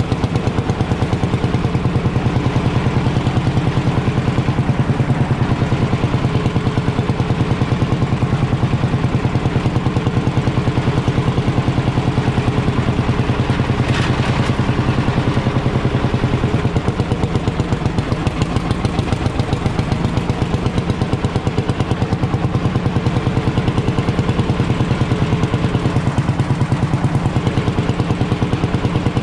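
Ursus C45 tractor's single-cylinder two-stroke hot-bulb engine running steadily while the tractor drives, its exhaust beat an even, rapid pulse. A short click about halfway through.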